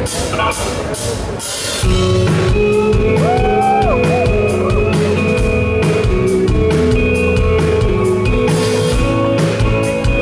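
Live indie rock band playing: electric guitar and drum kit, with the full band and bass coming in about two seconds in. A guitar note slides up, holds and drops back down a little after that.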